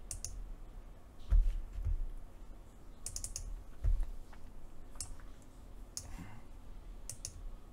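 Scattered clicks and taps of a computer keyboard and mouse, with a couple of dull thumps about one and a half and four seconds in.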